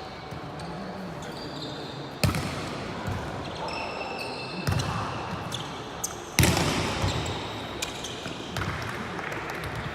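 Volleyball being struck in a gym: three sharp hits that echo, about two seconds in, near the middle, and at about six and a half seconds, the last the loudest. Sneakers squeak on the court between the hits.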